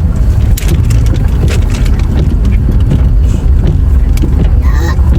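Loud, steady low rumble of a car driving, with wind buffeting, scattered with sharp clicks and ticks. A brief voice comes in near the end.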